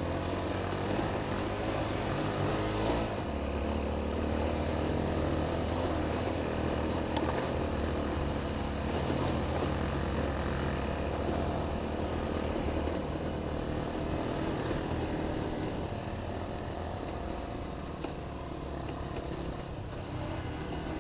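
Honda XR250 dirt bike's engine running as the bike is ridden on a trail, its note shifting up and down with the throttle.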